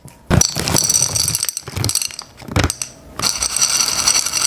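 Plastic Ramune candy packaging being handled and opened: runs of quick clicking and crackling, in two spells about a second in and again near the end.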